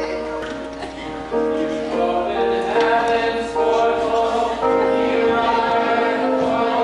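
Orchestra and choir singing the final bars of a love ballad, with long held notes; the music swells louder about a second and a half in.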